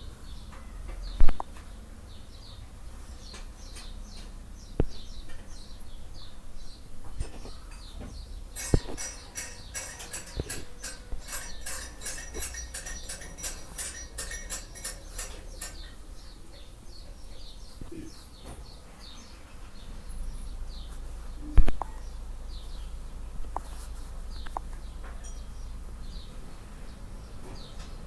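Small birds chirping, with occasional sharp clicks and knocks. For several seconds in the middle there is a fast, rhythmic, high-pitched chirring.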